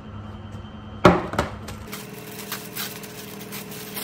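A cardboard gift-box lid set down with a sharp knock about a second in, followed by a smaller knock, then light rustling of tissue paper inside the box.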